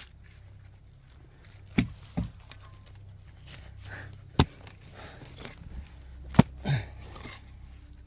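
A digging tool chopping into packed earth: four sharp strikes a second or two apart, the last the loudest, as soil is cleared around a buried clay pot.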